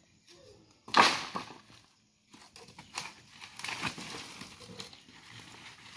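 Bamboo poles being dragged and pulled loose from a collapsed earth bank, with a loud scrape about a second in, then irregular crackling and knocking of dry bamboo against soil and debris.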